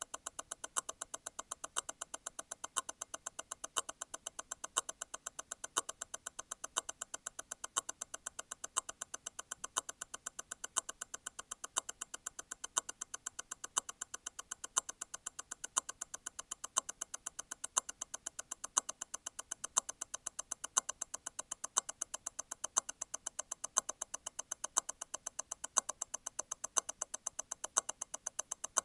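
Grand Seiko T0 Constant-force Tourbillon hand-wound movement ticking: rapid, even escapement beats at 28,800 vibrations per hour (eight a second). About once a second a louder click stands out, which is the constant-force stop wheel letting go and striking again once every eight beats.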